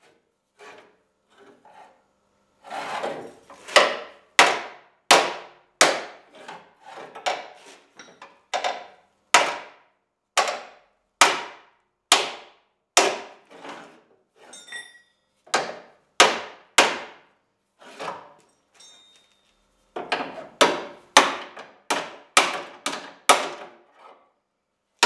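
Repeated hammer blows on the crumpled steel inner wing of a Lada Kalina's front end, knocking it back into shape while a chain puller holds it under tension. The blows come about one every half second to second, with short pauses and a quicker run near the end.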